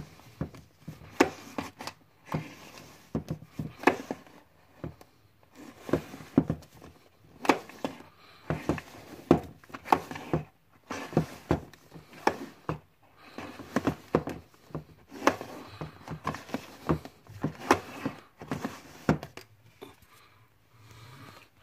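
Plastic disc cases clacking against each other and the wooden shelf as they are tipped out of a packed row and pushed back, an uneven run of sharp knocks and scrapes that stops shortly before the end.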